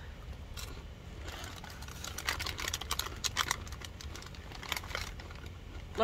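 Crunching of snack chips: a run of quick dry crackles from about a second and a half to nearly four seconds in, with a few more just before the end, over a steady low hum.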